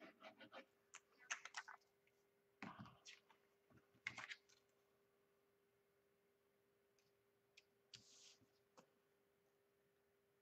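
Faint clicks, taps and rustles of cardstock being handled and folded on a cutting mat, bunched in the first few seconds with a few more later, over a faint steady hum.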